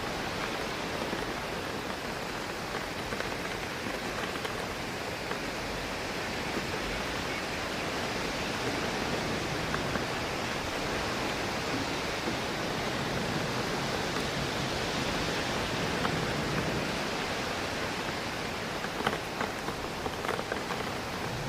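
Steady rain hitting a window, with wind rushing through trees. A few sharper drop taps stand out near the end.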